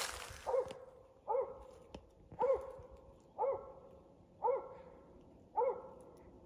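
A Mountain Cur squirrel dog barking at a steady pace, about one bark a second, six barks in all with a slight echo after each. This is a treeing bark, the sign that she has a squirrel treed.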